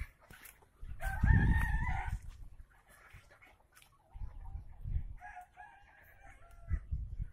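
A Kadaknath rooster crows twice: a call about a second in, then a longer one about five seconds in. Gusts of low rumble on the microphone come and go, the loudest at the first crow.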